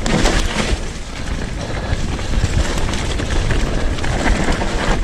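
Electric mountain bike riding fast down a dirt and leaf-covered forest trail: a steady rush of tyre and ride noise with low rumble and a few sharp knocks and rattles from the bike over rough ground.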